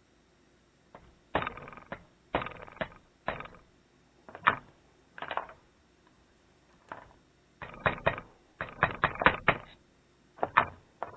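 Irregular metal knocks and clinks of tools working a torsion bar out of a Honda CB450 cylinder head, each with a short ring, with a quick run of them about eight to ten seconds in.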